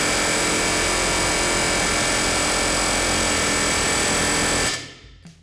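Pneumatic air chisel hammering steadily on a corroded ball joint stud to break it loose from the lower control arm; it cuts off abruptly near the end.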